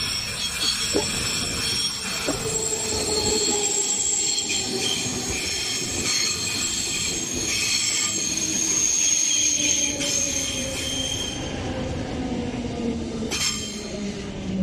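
A Berlin S-Bahn electric train runs past close by on a curve, its wheels squealing on the rails in several steady high tones over the rumble of the cars. The squeal fades near the end.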